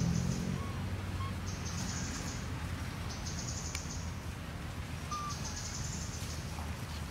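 High-pitched buzzing calls come in pulses, each just under a second long and about two seconds apart, over a steady low rumble. A short faint chirp is heard about five seconds in.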